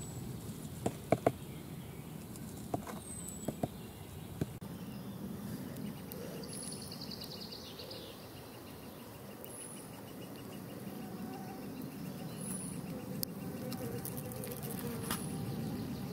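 A metal kitchen sieve being worked through a shallow muddy pool, with water sloshing and a few sharp knocks in the first few seconds. A bird gives a short, high, falling call about every three seconds, with a brief fast trill near the middle.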